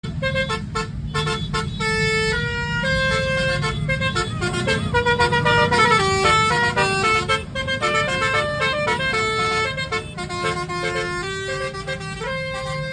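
Basuri telolet bus horn playing a tune as a string of held, stepped multi-tone notes over the low rumble of a running engine.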